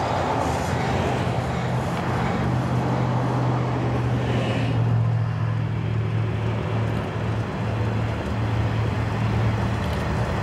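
Flatcars of a Norfolk Southern rail train, loaded with lengths of rail, rolling past: a steady rumble of wheels on the track with a constant low hum underneath.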